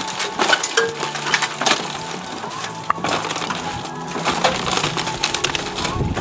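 Roof tear-off: hand tools prying and scraping old cedar shakes and asphalt shingles off the roof deck, with irregular cracking, splintering wood and the clatter of loose debris sliding and dropping.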